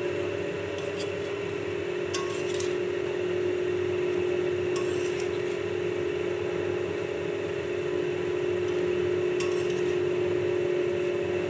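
A spatula stirring raw spinach and chopped vegetables in a kadai: leaves rustling and the utensil scraping against the pan, with a few sharper scrapes or clinks. A steady low hum runs underneath.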